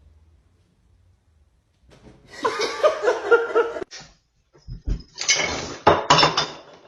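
Clattering of hard objects in two loud bursts, the second with sharp knocks.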